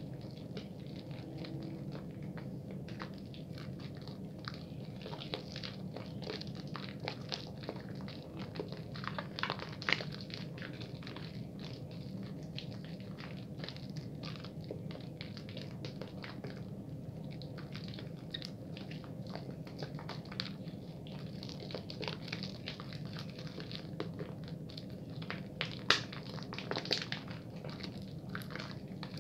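A bar of soap being lathered at a fast-ish pace: dense, irregular crackling and squishing of the lather, with two louder clicks, one about ten seconds in and one near the end, over a steady low hum.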